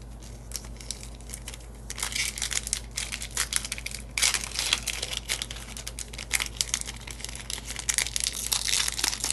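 Foil booster-pack wrapper crinkling and being torn open by hand. A dense run of crackling starts about two seconds in.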